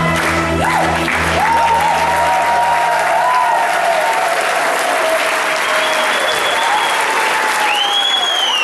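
Audience applauding loudly as the band's last low chord dies away in the first three seconds, with a few whistles gliding over the clapping, one near the end.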